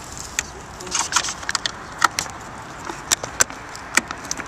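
Irregular sharp clicks and knocks, about a dozen, of hands handling the camera and its mount up close.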